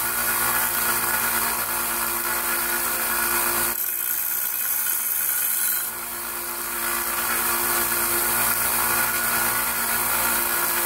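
Harbor Freight 1x30 belt sander running with a hatchet's steel edge held against the belt to sharpen it: a steady motor hum under the hiss of the belt grinding. The low hum drops out for about two seconds near the middle.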